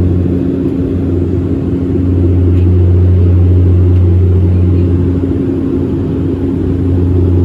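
Steady, loud low drone of an airliner's cabin in flight, with a deep hum and a couple of fainter steady tones above it.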